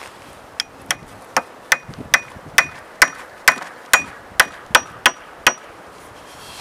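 About thirteen sharp blows, roughly two and a half a second, driving a whittled wooden peg into a drilled hole in a chair leg; each strike has a short ring, and the blows stop about a second before the end.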